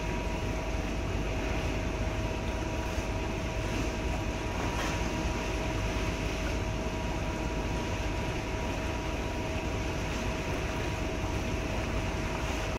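Steady drone of ship machinery over a rushing noise, with two constant hum tones running through it.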